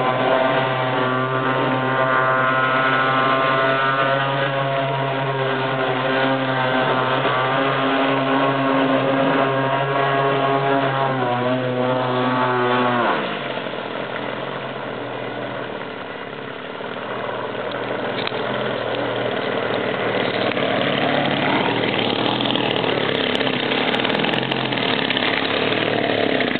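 RC boat's Trimline 25cc two-stroke string-trimmer engine running at high revs, its pitch wavering slightly. About halfway through the engine note falls away sharply, leaving only a steady rushing noise.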